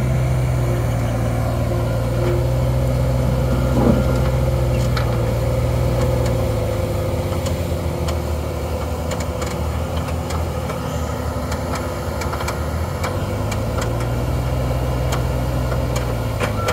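Diesel engines of a mini excavator and a Terex compact track loader running close by, a steady low engine hum while the excavator works its hydraulics to lever itself up onto the loader's track. The low hum eases for several seconds in the middle, then comes back up.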